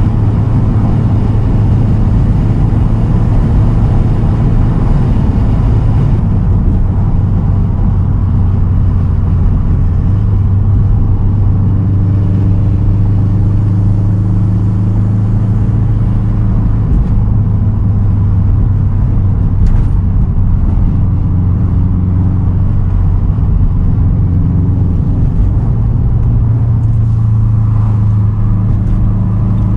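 2010 Subaru WRX STI's turbocharged 2.5-litre flat-four, exhausting through a single Tomei titanium straight pipe, droning steadily at cruise with a few small shifts in engine pitch.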